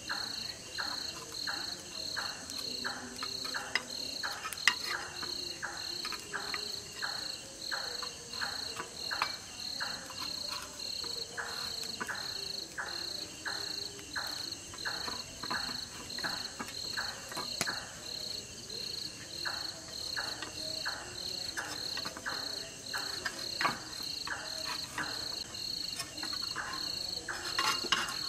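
Insects chirping in an even rhythm of about two pulses a second, over a steady high trill.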